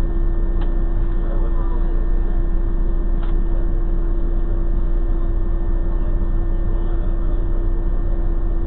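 Steady low rumble of a car idling, heard from inside the cabin through a dashcam microphone, with a constant electrical-sounding hum over it and a faint click about three seconds in.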